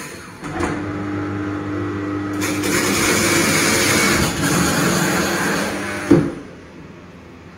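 Coconut trimming machine: a click, then its motor starts and runs with a steady hum while the spinning young coconut's green husk is shaved off by the blade, a loud hissing shave from about two and a half seconds in. A loud clack about six seconds in as the cutting stops.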